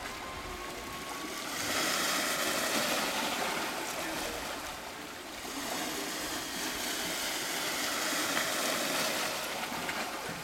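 Small waves washing against the shore: a steady watery hiss that swells about two seconds in and again around six seconds.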